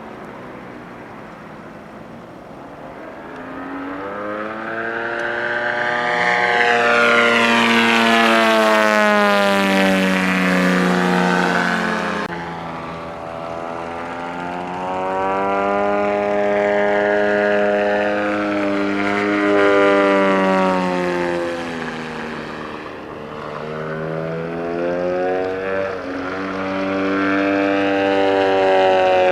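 Radio-controlled model airplane's engine in flight, its pitch sweeping up and down as the plane passes and turns. It is loudest about a third of the way in, then swells twice more.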